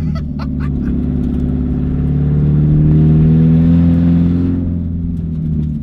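A 1994 Mazda Miata's 1.8-litre four-cylinder engine, running loud through an open downpipe, heard from inside the cabin while driving. It holds a steady drone that climbs slowly in pitch and eases off near the end, with a few light clicks in the first second.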